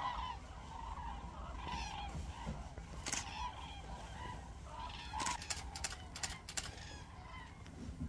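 A distant flock of common cranes calling, with many overlapping trumpeting calls. Several sharp clicks come near the middle.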